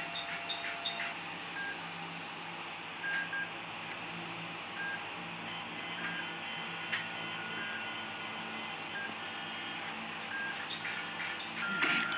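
Medical equipment beeping: short electronic beeps at several different pitches, some in quick repeated runs, over the steady hum of running machines. A burst of beeps near the end is the loudest part.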